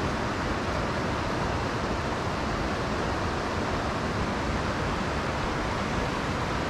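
Steady rush of a mountain creek's running water.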